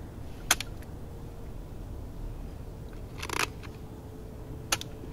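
Handling of a plastic toy pistol: two sharp clicks about four seconds apart, with a short scuffling noise between them, over a faint steady hum.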